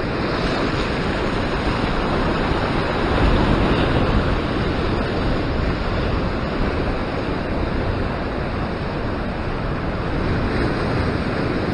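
Ocean surf surging and breaking over a rock ledge: a steady wash of rushing water that swells a little about three seconds in, with wind buffeting the microphone.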